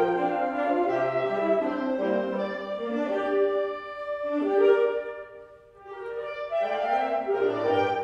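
Woodwind chamber ensemble of flutes, clarinets, bass clarinet, saxophones and bassoons playing held chords over moving lower lines. About five seconds in the music drops to a soft moment, then swells back in a second later.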